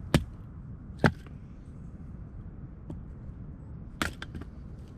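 Hatchet splitting firewood on a wooden chopping block: two sharp chops about a second apart near the start, a lighter knock about three seconds in, and another chop about four seconds in.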